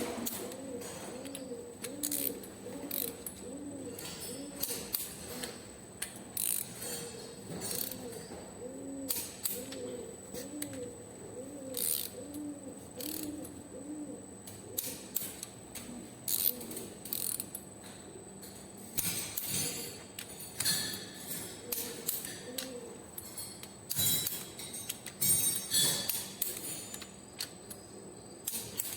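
Ratchet wrench clicking in irregular runs as the cylinder head bolts of a Hino 300 engine are tightened. A low, repeating rise-and-fall tone runs beneath it for much of the time.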